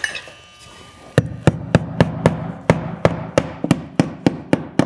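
Hammer driving a nail through the nailing slot of vinyl J-trim into the wall, with quick, even taps at about four strikes a second, starting about a second in.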